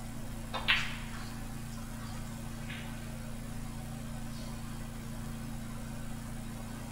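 Snooker shot: a light tap of the cue tip on the cue ball, then at once a loud, sharp clack as the cue ball strikes the nearby object ball, about a second in. A softer knock of a ball follows about two seconds later, over a steady low room hum.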